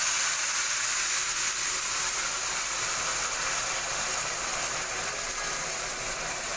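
Warm milk being poured into semolina fried in hot ghee in a wok, hissing and sizzling loudly as it hits the hot fat and boils up; the sizzle holds steady and eases slightly near the end.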